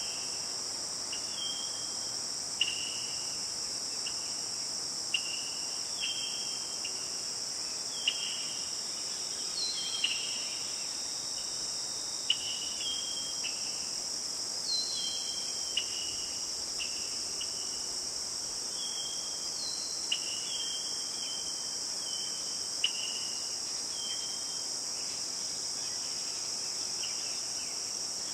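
Steady, high-pitched insect chorus, with short chirps repeating every second or two and a sharp click every few seconds.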